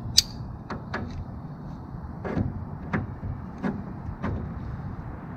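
Knipex pliers wrench working the bent sheet-steel edge of a Snap-on tool chest: one sharp metal click, a few lighter clicks, then four dull clunks about two-thirds of a second apart as the smooth jaws grip and squeeze the wavy seam.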